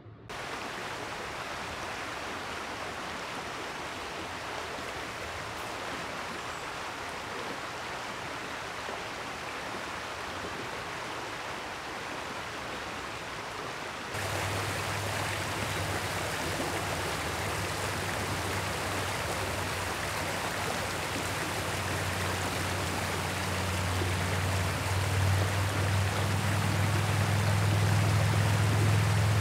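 Small stream rushing steadily over a riffle. About fourteen seconds in the sound turns louder, with a deep rumble underneath that grows stronger near the end.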